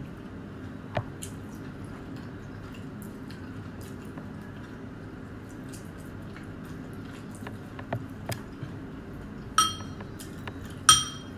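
Mouth-close eating sounds with soft scattered clicks from chewing and handling food by hand, then near the end a metal spoon clinks twice against a ceramic soup bowl, each strike ringing briefly.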